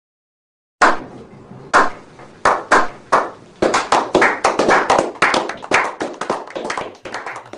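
A small group clapping a slow clap: single claps start about a second in, come roughly a second apart, then quicken into steady applause of several claps a second that thins out near the end.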